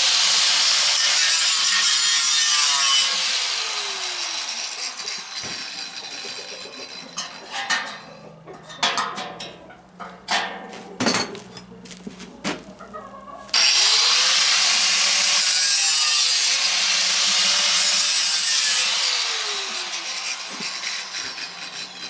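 Electric angle grinder with a cut-off disc cutting through the steel shell of an old gas water-heater tank, in two long cuts. Each cut is followed by the disc winding down in a falling whine. Between the cuts comes a run of separate metal knocks.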